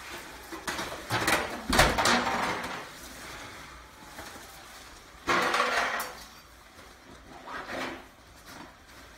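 Kitchen clatter as an oven door and a roasting pan are handled. There are several knocks and clatters: the sharpest comes a little under two seconds in, and another noisy burst follows a little after five seconds.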